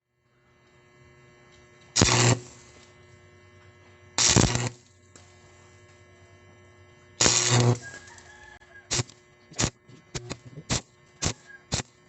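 Stick (arc) welder arcing onto a broken bolt stub in an engine block to build up weld for a grip. Three crackling bursts of under a second each come first, then a quick run of short arc strikes, about one to two a second, over a steady electrical hum.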